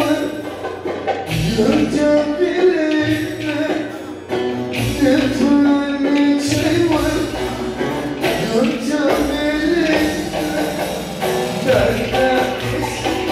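Ankara oyun havası folk dance music played live: a voice singing over instruments with a steady beat.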